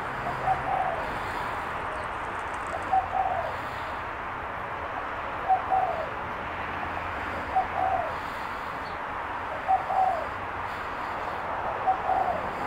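Spotted dove cooing: a short coo phrase, a quick note followed by a longer falling one, repeated about every two seconds, six times, over a steady background hiss.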